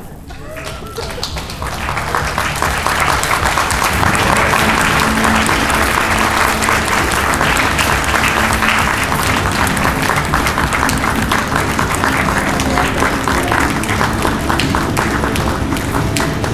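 Audience applauding, swelling up over the first couple of seconds and then holding steady.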